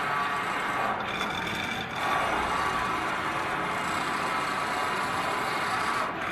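Electric-blanket welding machine running steadily, a continuous machine noise with several high whining tones, briefly dipping about a second in and again near the end.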